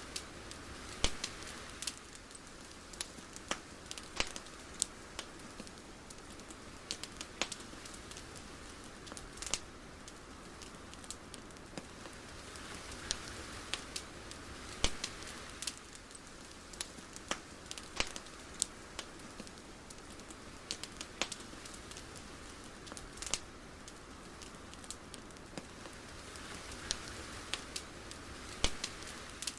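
Ambient crackling: irregular sharp pops and clicks over a soft hiss that slowly swells and fades.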